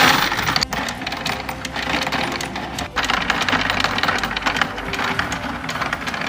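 Motorised coin counter running, with a steady rattle of coins clattering through it.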